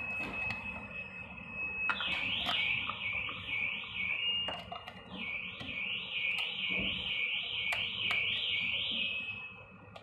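Multi-port phone anti-theft alarm host sounding its electronic siren: a steady high beep-tone for about two seconds, then a warbling tone sweeping up and down about two and a half times a second, with a short steady tone in the middle and another near the end. A few sharp clicks of USB plugs being pushed into the host's ports.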